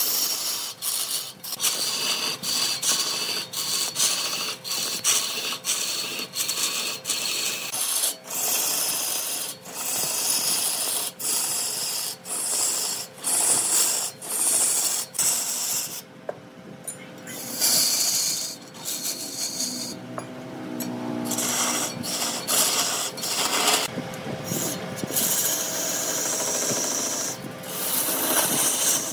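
Wood being turned on a lathe: a cutting tool scraping and shaving the spinning wood, over a faint steady hum from the lathe. The scraping is broken by many sudden short breaks.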